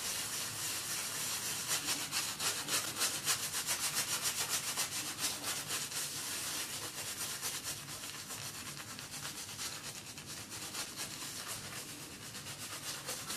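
Omega boar-bristle shaving brush scrubbing shaving-soap lather onto a shaved scalp: a wet, bristly rubbing in quick back-and-forth strokes as the lather is built. Busiest in the first half, easing off toward the end.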